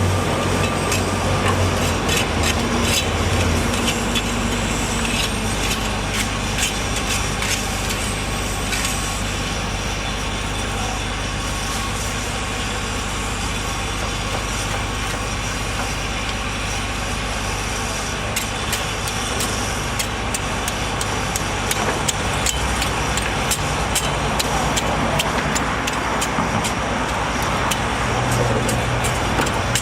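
A vehicle engine running steadily with a low hum. Over it come many sharp clicks and knocks in two stretches, one early and one in the second half.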